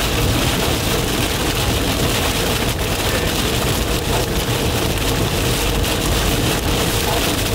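Heavy rain drumming on the roof and windshield of a moving car, with a thick spatter of small hits over steady road and engine rumble.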